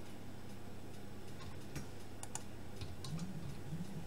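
A few scattered keystrokes on a computer keyboard, short light clicks, over a low steady hum.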